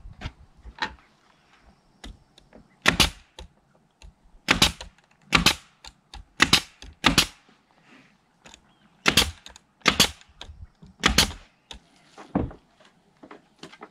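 Pneumatic nail gun firing nails into the coop's wooden trim: a series of sharp shots, most about a second apart with some longer gaps, and fainter clicks and knocks in between.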